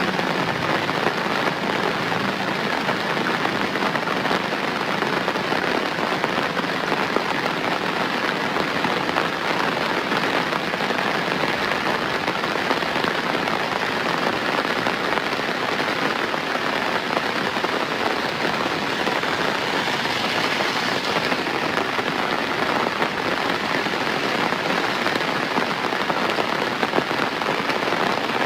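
Steady rain falling, an even, dense hiss of many drops.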